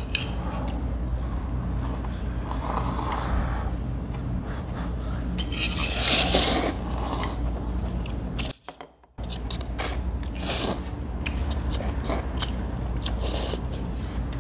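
Noodle-eating sounds at a table: chewing and slurping, with utensils scraping and clicking against the bowl, over a steady low hum. A louder noisy stretch comes about six seconds in, and the sound cuts out for about half a second near the middle.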